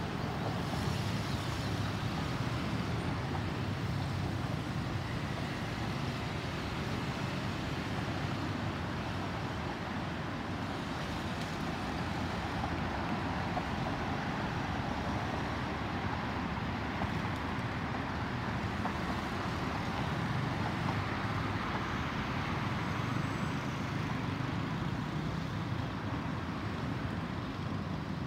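Boeing 737-800 airliner's CFM56-7B jet engines rumbling steadily as it flies over, swelling a little midway.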